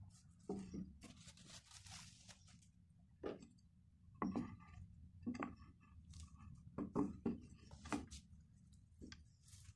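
Wooden cutting board and a small kitchen knife being handled and set down: a series of light knocks and clacks. Soft rustling at about a second in.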